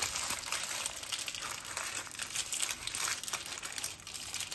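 Parchment paper crinkling and rustling as a hot sponge sheet is rolled up inside it, with many small irregular crackles.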